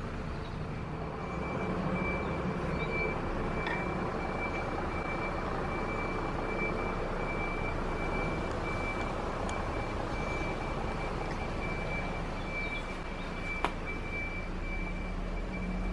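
Steady outdoor background noise with a low rumble, a thin constant high whine, and a single sharp click about two seconds before the end.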